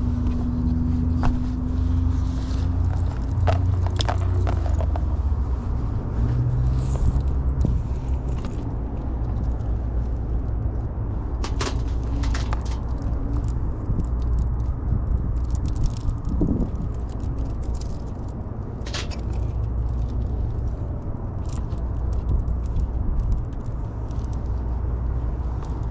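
A steady low rumble, with scattered sharp clicks and taps.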